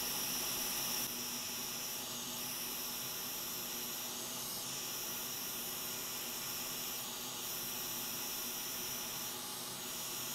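Hot air rework station blowing a steady hiss of hot air onto a MOSFET power-stage chip, heating the board to melt the solder so the shorted chip can be lifted off.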